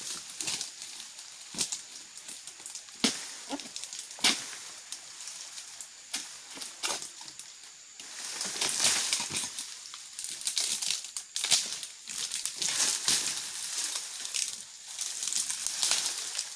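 Pole-mounted blade chopping into oil palm frond bases: sharp, irregular strikes a second or more apart. Between and after them come longer stretches of rustling and crunching from dry palm fronds.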